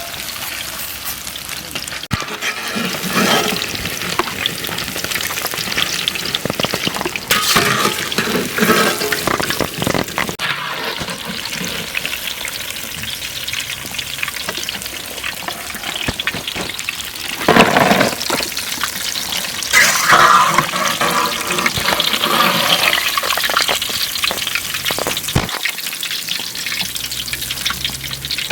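Chicken pakoda fritters deep-frying in hot oil: a steady sizzle and crackle, louder for a moment past the middle.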